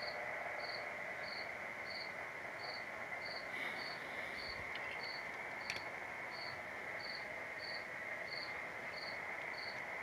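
A short, high-pitched chirp repeating evenly about three times every two seconds over a constant high whine, with one faint click a little past halfway.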